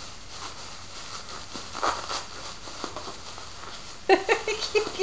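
Bubble wrap crinkling and crackling as it is unwrapped by hand, with a short burst about two seconds in and a louder run of crackles near the end.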